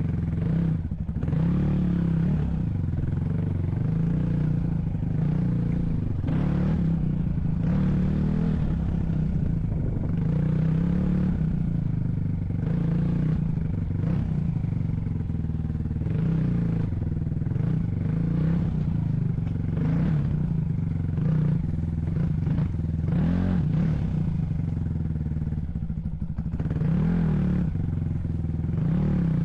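A motor vehicle's engine running under varying load, its pitch rising and falling, with rattling and clatter from the vehicle over rough ground.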